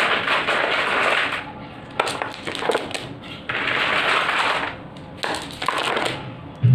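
Crushed stone (gitti) being dropped into a pan of dry sand and cement and stirred in by hand. It makes a gritty rattling in a few bursts, with some sharp clicks of single stones landing.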